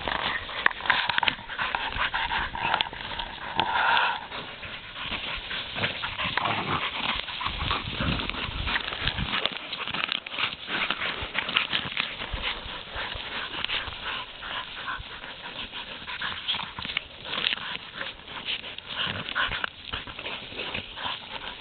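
Dogs panting and whining while working an armadillo, over a steady crackle of scratching and rustling. The whining is strongest early on, in the first few seconds, and again near the end.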